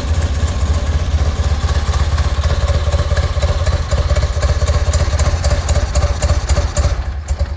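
1974 BMW R90S's air-cooled 898 cc flat-twin boxer engine running unevenly on choke just after a cold start, then cutting out near the end: it stalls before it has warmed up.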